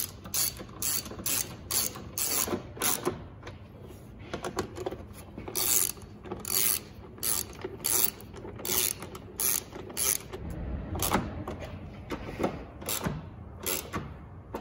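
Hand ratchet with a 10 mm socket on an extension clicking in repeated back-strokes, about two to three a second, in runs with brief pauses, as bolts are run in and tightened.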